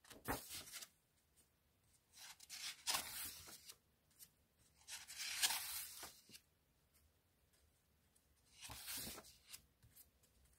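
Sketchbook pages being turned by hand: paper rustling and flapping in several short bursts, with quiet between them.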